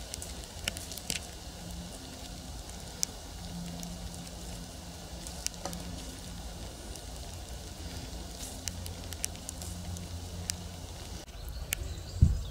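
A foal grazing, cropping and chewing grass: scattered faint crackles and ticks over a low steady rumble. A short thump near the end.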